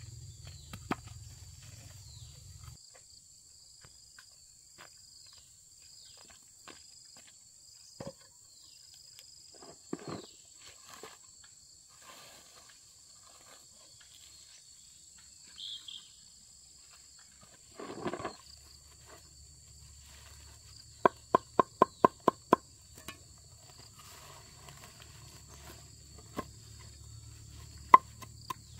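Insects calling steadily in the background, with a few scattered knocks and a brief rustle. About two-thirds of the way in comes a quick run of about seven sharp chopping strikes, and more chopping strikes near the end.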